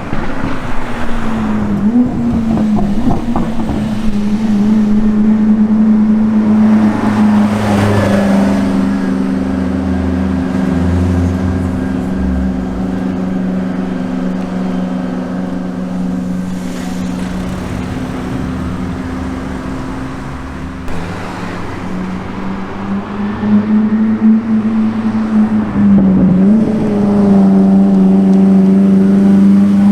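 A car engine droning at a steady pitch, as at constant speed. The note falls at the start, then holds level. It dips briefly a few seconds before the end and starts to climb as the car accelerates at the very end.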